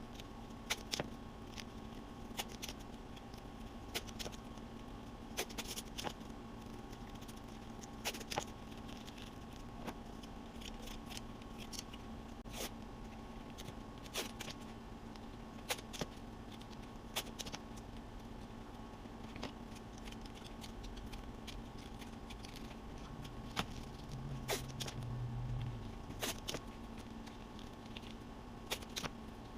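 Sharp light clicks and taps at irregular intervals, often one every second or two, over a steady faint hum; a short low drone rises briefly near the end.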